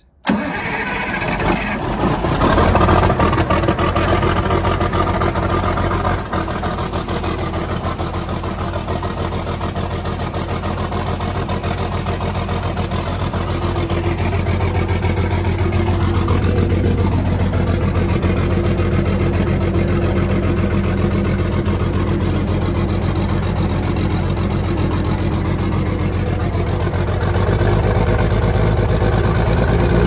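Allis-Chalmers crawler loader's diesel engine firing up about a third of a second in and then running steadily, on its first start after sitting two years. It runs a little louder near the end.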